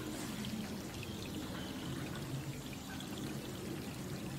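Steady rain falling on water: a dense, even patter of drops.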